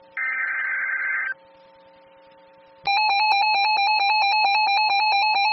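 Emergency Alert System tones from NOAA Weather Radio. The last SAME header data burst, a buzzy warbling squawk about a second long, is followed by a pause. About three seconds in, the loud, steady attention tone begins, signalling that a warning message is about to follow.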